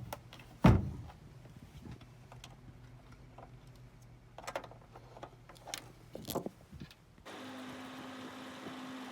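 Handling knocks and clicks, the loudest a sharp knock about a second in, with a few lighter clicks later, over a faint low hum. About seven seconds in it switches abruptly to a steady hum with a low tone.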